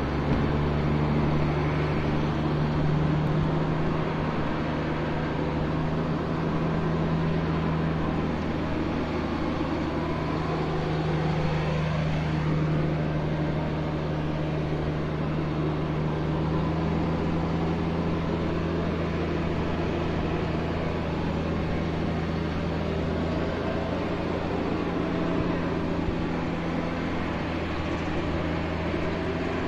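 Diesel engine of a parked Foton vacuum tanker truck idling, a steady low drone throughout.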